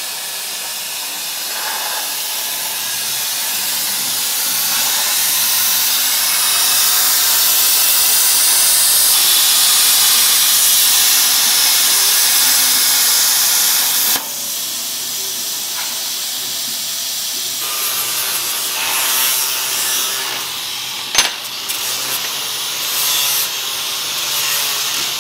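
CNC plasma cutter hissing steadily as its torch cuts steel plates, stopping abruptly about 14 seconds in. In the second half, an angle grinder with a flap disc runs against small cut steel plates, with a sharp click a few seconds before the end.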